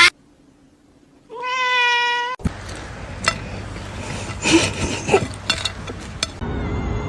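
A domestic cat gives one drawn-out meow lasting about a second, after a sharp click and a short quiet spell. It is followed by rustling and scattered knocks with a couple of short squeaks.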